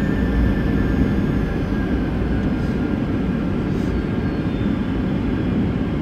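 Airliner cabin noise during the landing roll: a steady low rumble of engines and runway, with a faint whine gliding slightly down in pitch over the first couple of seconds.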